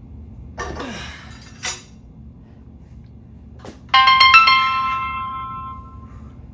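Phone ringtone: a quick run of bell-like chime notes about four seconds in, ringing on and fading over about two seconds.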